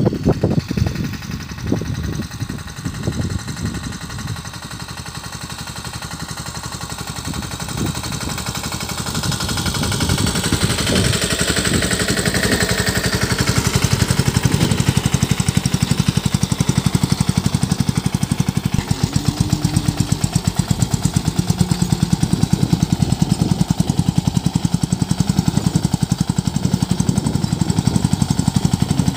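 Sanedo mini tractor's 10.5 HP single-cylinder diesel engine running under load as it pulls a cultivator through the soil. It has a rapid, steady thumping beat that grows louder about ten seconds in.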